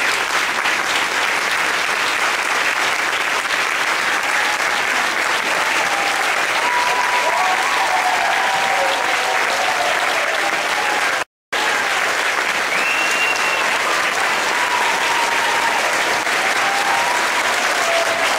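A large hall audience of children and adults applauding steadily, with scattered voices over the clapping. The sound cuts out completely for a split second about eleven seconds in.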